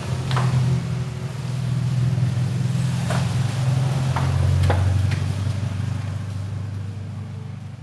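A vehicle engine running, a steady low hum that swells about halfway through and then fades away. A few light clicks and knocks sound over it as the helmet and goggles are put on.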